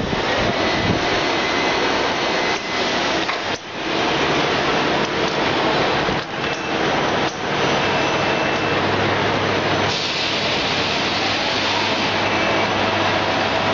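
Steady machine-shop noise from CNC lathes and the robot arm tending them running: a dense hiss with faint whines and a few knocks. A low hum joins about nine seconds in.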